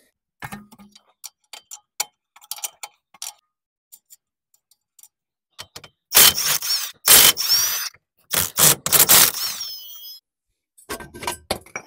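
Cordless impact wrench hammering in several loud bursts, loosening the bolts that hold the ball joint to the lower control arm, its motor whining down at the end. Light clicks of the socket and tools come before and after.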